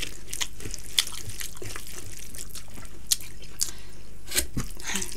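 Close-miked wet eating sounds: scattered soft smacks and clicks of chewing dal bhat, with fingers squishing rice mixed with dal.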